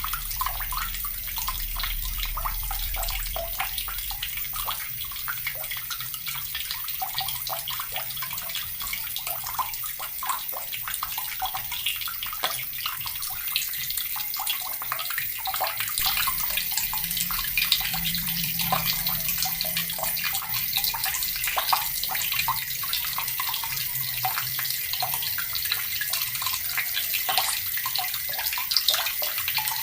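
Water running steadily from a tap and splashing, a continuous hissing stream.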